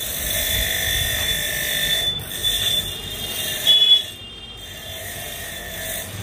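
A steady high-pitched mechanical whine over a hiss, with a brief louder squeal about four seconds in.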